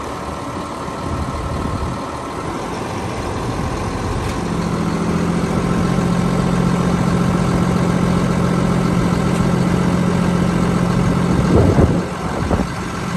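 A box truck's engine idling steadily, with a deeper, steady hum joining in about four seconds in and holding. A brief louder sound near the end.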